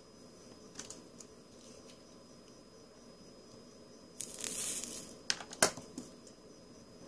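Hand soldering on a small circuit board: a few faint handling ticks, then, about four seconds in, a brief hiss of flux sizzling as solder wire melts at the iron tip, followed by two or three sharp clicks.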